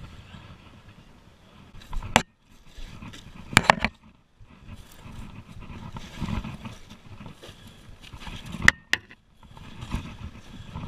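Close handling and movement sounds of a climber working on a roof: shuffling and scraping, broken by a few sharp knocks and clinks, one near the end ringing briefly like metal rigging gear.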